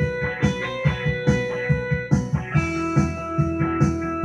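Electronic keyboard playing a blues tune, with a steady beat underneath.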